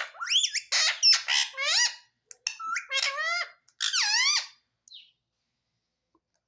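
Indian ringneck parrot giving a rapid string of short, high, squawking calls that glide up and down in pitch, ending about five seconds in.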